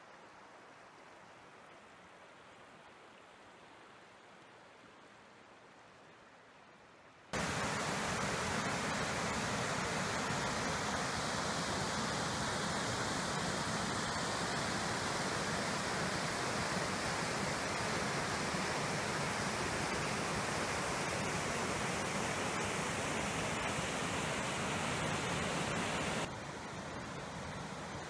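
Rushing water from river rapids and a low waterfall: a steady, even roar. It follows a quieter stretch of faintly flowing water, comes in suddenly about seven seconds in, and drops back somewhat near the end.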